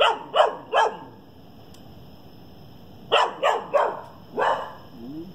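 A dog barking: three quick barks in the first second, then after a pause four more.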